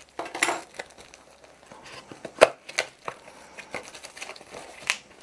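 Small cardboard box being worked open by hand: the card rustles just after the start, then sharp taps and knocks as the tight box is pried open, the loudest about two and a half seconds in and another near the end.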